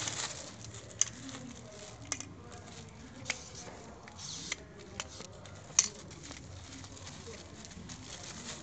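Clear plastic wrap rustling and crinkling as it is pulled off a stroller's rubber wheel, with scattered sharp clicks and knocks from handling the wheel and a hand pump's hose.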